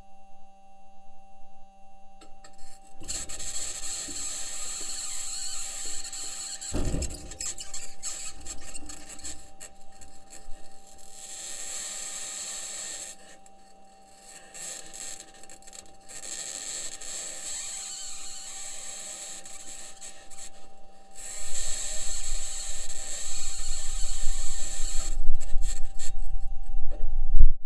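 Perseverance Mars rover driving, heard through its own microphone: a rasping, squealing scrape of its aluminium wheels and suspension grinding over rock. The scrape starts a few seconds in, nearly stops about halfway through, then resumes with a deeper rumble building near the end. Two faint steady hums run underneath.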